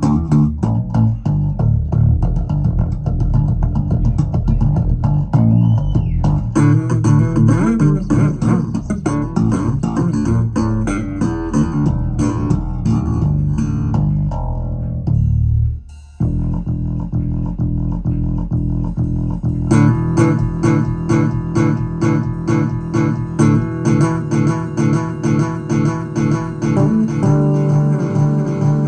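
Music with bass guitar and plucked guitar, played back through Vandersteen 2Ce loudspeakers and heard in the room. It breaks off suddenly for a moment about halfway through, then carries on with a more even beat.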